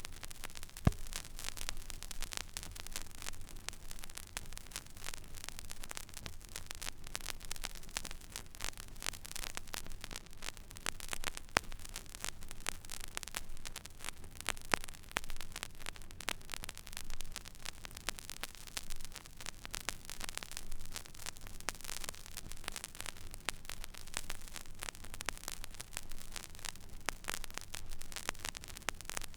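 Stylus running in the empty groove of a vinyl record: steady surface hiss and low hum with continual small crackles and a few louder pops.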